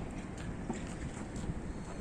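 Steady low rumble of outdoor ambience, wind on the microphone mixed with distant traffic, with a few faint light ticks.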